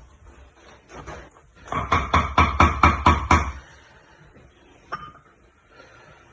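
A utensil knocking quickly against a cooking pot while goat-head meat is mixed with seasoning: a run of about a dozen sharp clanks, six or seven a second, lasting nearly two seconds, then a single knock.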